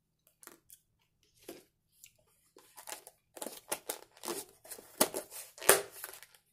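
Clear plastic lid being handled and pressed onto a black plastic takeout tub: a run of crinkling crackles and sharp clicks, sparse at first, then busier, with the loudest snap near the end.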